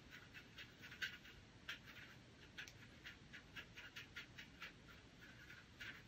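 Faint, soft wet dabbing and scraping of a watercolour brush mixing paint and water in a metal palette tin, in short irregular strokes about three a second.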